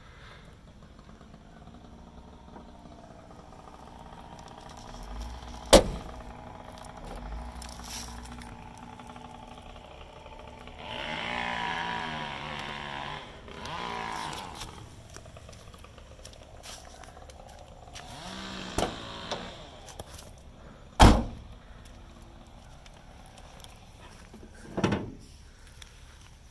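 A series of sharp thunks from a 1992 Nissan Figaro's body panels being shut, the loudest about six seconds in and about twenty-one seconds in, with quieter knocks and handling noise between.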